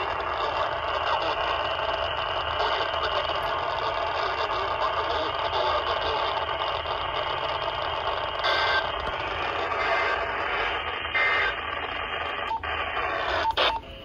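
Steady static hiss from a Motorola handheld two-way radio's speaker. It cuts off just before the end, with a few sharp clicks.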